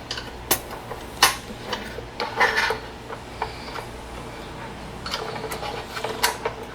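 A screwdriver prying up the metal tabs on a Uconnect 8.4 radio's sheet-metal housing: scattered sharp metallic clicks and scrapes, spaced irregularly.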